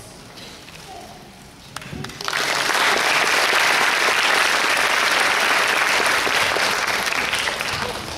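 Audience applauding, starting suddenly about two seconds in after a quiet moment with a short knock. The clapping stays loud and steady and eases off slightly near the end.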